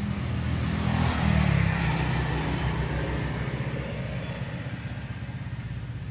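Motor vehicle engine running with a steady low pulse, swelling about one to two seconds in and then slowly fading.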